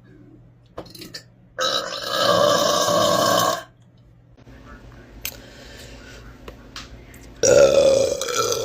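A woman burping loudly: one long burp of about two seconds, then a second burp starting near the end.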